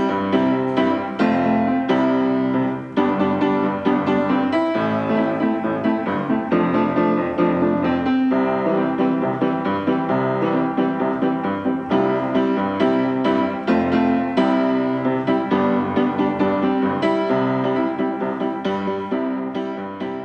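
Instrumental piano music with a steady rhythm of repeated notes.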